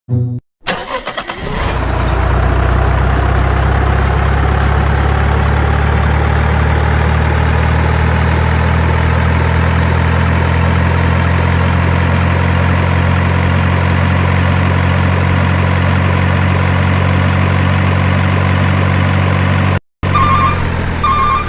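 A motor vehicle engine cranks and catches in the first second or two, then idles steadily with a low, even drone. It cuts out briefly near the end and comes straight back.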